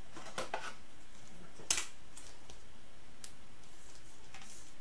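A few soft clicks and taps of a trading card and clear plastic card holders being handled, the sharpest click a little under two seconds in.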